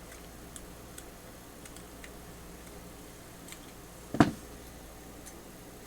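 Faint small metal clicks and taps as the parts of a vintage adjustable wrench are handled during disassembly, with one louder sharp clink about four seconds in.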